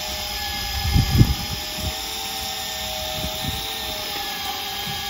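Electric fishing reel winding in line under load: a steady motor whine that wavers slightly in pitch as the load changes. A few low thumps about a second in.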